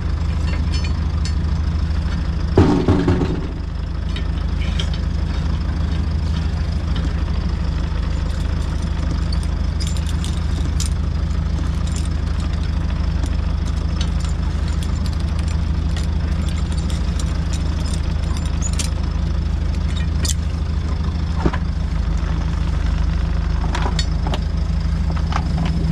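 A steady, even engine hum runs throughout, with small metallic clicks and taps as an anchor shackle is worked and tightened with pliers, and a louder clatter about three seconds in.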